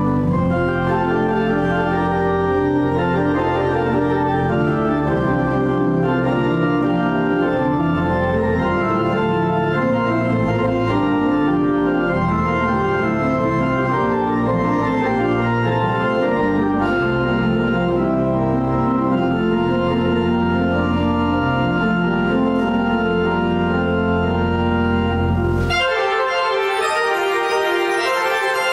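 Church pipe organ playing a postlude: full sustained chords over a deep pedal bass. About 26 seconds in, the bass drops out and a brighter, higher passage carries on.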